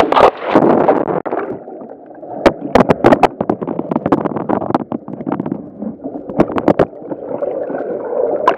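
Water rushing through an enclosed tube water slide, then a splash into the pool about a second in. After that the sound turns muffled and underwater, with gurgling and bubbling and many sharp clicks and knocks.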